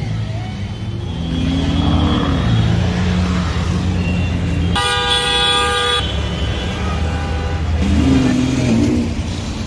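Car engines running in road traffic, with a car horn sounding once for about a second midway through.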